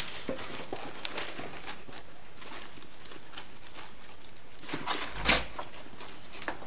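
Steady background hiss with a few faint knocks and one louder thump about five seconds in: a door being opened or shut as someone arrives.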